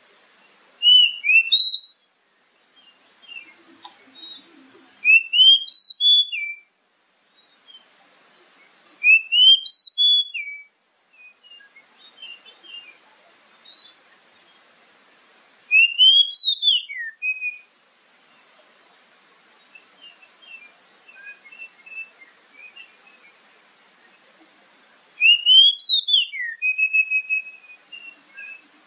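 Oriental magpie-robin singing: five loud phrases of rising, clear whistled notes, each a second or two long and several seconds apart, with soft twittering notes between them.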